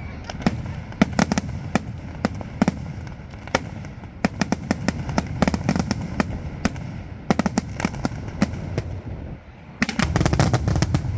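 Fireworks display: a run of sharp cracks and bangs over a steady low rumble, with a brief lull just before ten seconds in, followed by a dense rapid volley of cracks.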